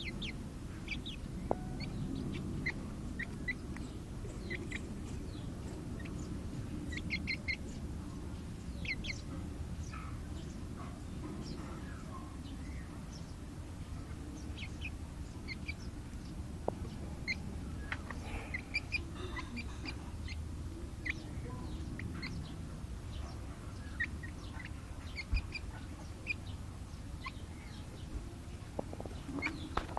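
Young chicken peeping: short high-pitched peeps, often in quick runs of two or three, scattered throughout over a steady low background hum.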